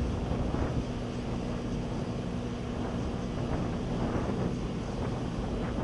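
KC-10 Extender tanker's three turbofan engines at takeoff thrust as it lifts off and climbs away, heard from a distance: a steady rumble with a faint steady hum.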